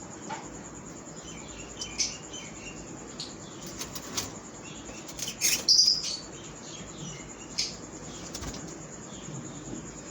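Lovebirds in a colony chirping and flapping their wings, with short high chirps and clicks scattered throughout and a louder cluster of sharp calls a little past the middle.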